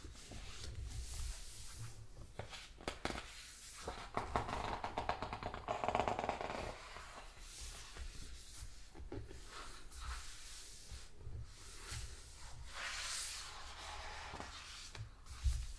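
Pages of a large hardcover book being turned and smoothed by hand, with paper rustling and small crinkles and ticks. There is a longer rustle about four to six seconds in and another about thirteen seconds in.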